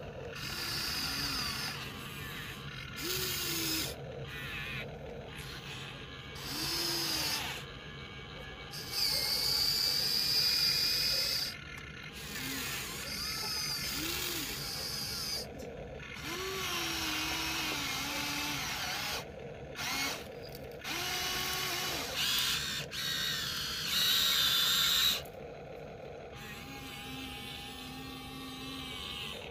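Small electric gear motors of a Huina remote-control toy excavator whirring in repeated spurts of one to three seconds as the boom, arm and cab move, each spurt's whine rising in pitch, holding, then dropping as the motor stops.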